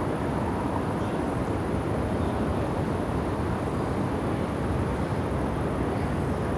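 City lakeside ambience: a steady low rumble of distant urban traffic, with a few faint high chirps.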